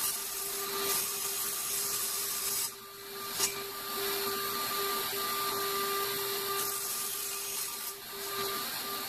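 Small benchtop table saw running steadily with its dust extraction, with a steady motor hum, while thin 1/8-inch plywood is fed through it into strips. The sound dips briefly about three seconds in and is followed by a click.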